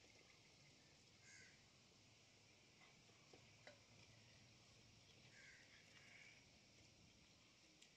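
Near silence: a steady faint hiss, with a few faint animal calls, once early and again after about five seconds.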